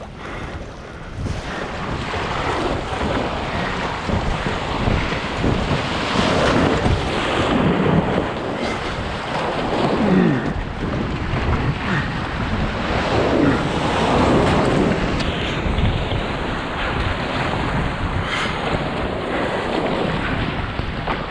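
Rough, foaming sea rushing and splashing around a sit-on-top kayak as it is paddled out, in repeated surges, with wind buffeting the microphone.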